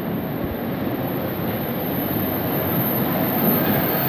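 MBTA Red Line subway train approaching through the tunnel into the station, its rumble growing steadily louder.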